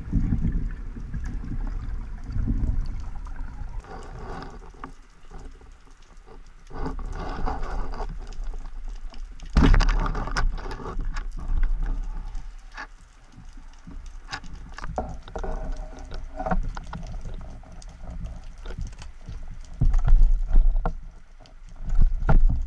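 Underwater noise picked up by a camera on a speargun: water rushing and gurgling against the housing, with scattered sharp clicks and knocks, one hard crack about ten seconds in, and louder bursts of water movement near the end.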